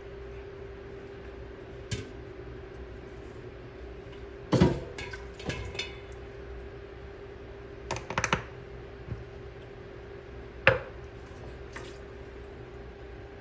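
Scattered clinks and knocks of glass canning jars and a metal pot being handled and set down on a countertop, several in a quick cluster about five seconds in and again about eight seconds in. A steady faint hum runs underneath.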